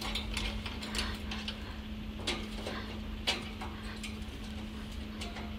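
Scattered light ticks and clicks from a rosy-faced lovebird climbing over a wire birdcage, the sharpest two about two and three seconds in, over a steady low hum.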